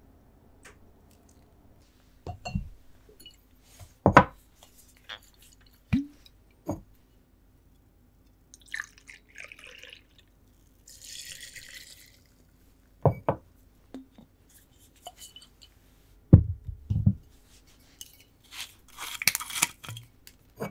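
Cocktail-making sounds at a wooden bar: a series of separate knocks and clinks of a glass jar and a steel jigger, with short stretches of liquid noise. Near the end, white rum is poured from the bottle into a steel jigger.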